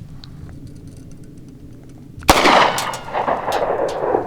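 A single 9mm pistol shot from an Altor single-shot pistol about two seconds in, followed by a loud echo that dies away over about two seconds.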